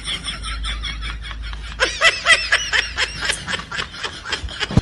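Rapid, high-pitched snickering laughter in many short pulses a second, growing louder about two seconds in.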